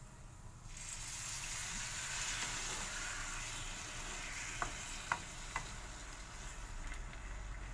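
Coconut milk poured into a hot wok of sautéed glutinous rice, sizzling as it hits the pan under a second in, while a wooden spoon stirs it through. Three light taps a little past halfway.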